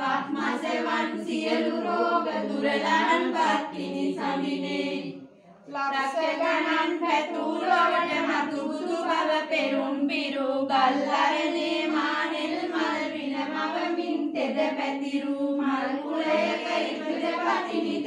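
A group of women singing devotional verses in unison from printed sheets, with no instruments. There is a short break for breath about five and a half seconds in.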